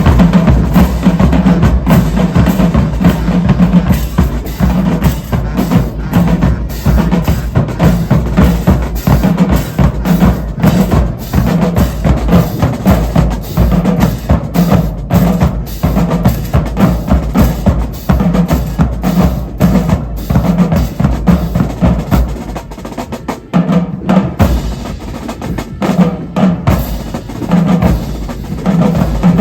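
High school marching band drumline playing a cadence: snare and bass drums striking in a fast, dense rhythm, with a short drop in loudness about twenty-three seconds in.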